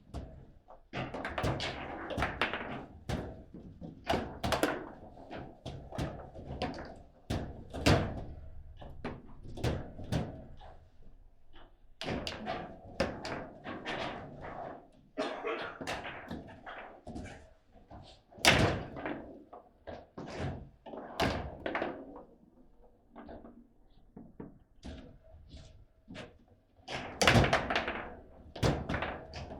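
Table football game in play: rapid, irregular clacks and thuds of the ball being struck by the rod-mounted players and hitting the table walls, with rods knocking against the table. The loudest strike comes about 18 seconds in, and there is a dense flurry of hits near the end.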